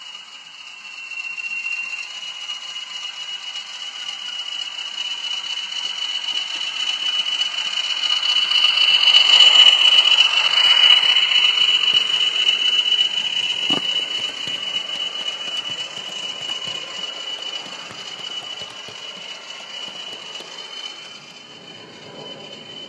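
Bachmann Class 20 model diesel locomotive with a sound decoder running past with its coaches: the speaker's diesel engine sound together with the mechanical rattle of wheels and motor on the track, growing louder as it nears, loudest about ten seconds in, then fading as it draws away. A single sharp click comes a few seconds after the peak.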